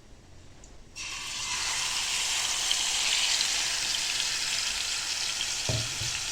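Yogurt-and-spice-marinated minced chicken sizzling in hot oil in a pan. The sizzle starts suddenly about a second in, as the chicken meets the oil, and runs steadily. A short low knock comes near the end.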